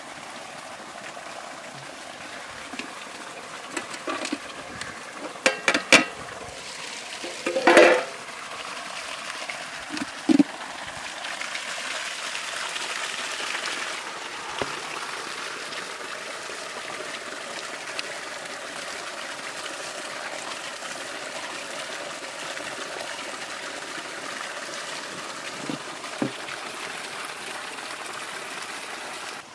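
Water pouring and splashing. A few sharp knocks and clatters come in the first ten seconds, with a short, louder pitched sound about eight seconds in.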